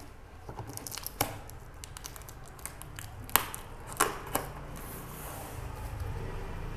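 Cardboard shipping box handled and turned over on a wooden board: light rustling with four sharp knocks, the loudest a little over three seconds in.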